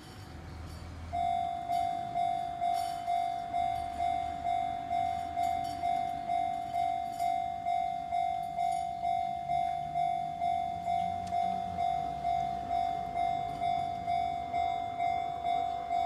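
Japanese level-crossing electronic warning bell starting up about a second in and ringing a steady single-pitched "kan-kan" about twice a second, signalling that a train is approaching and the barrier is coming down.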